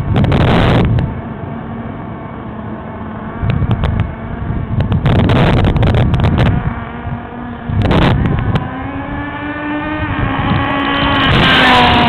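Small nitro (glow-fuel) RC car engine running with a buzzing note that climbs in pitch over the last few seconds as it revs up. Loud rushing noise comes and goes over it.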